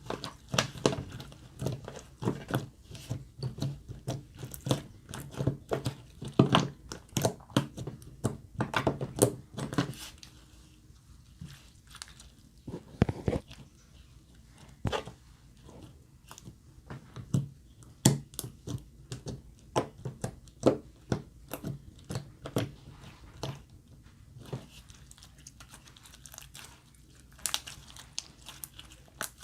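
Glossy slime being squished and kneaded by hand, giving irregular wet clicks and pops. The pops come thick and fast for the first ten seconds or so, then more sparsely.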